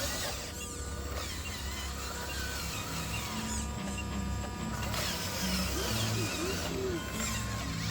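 Small electric motor and gearbox of a radio-controlled model truck whining, the pitch rising and falling as it drives.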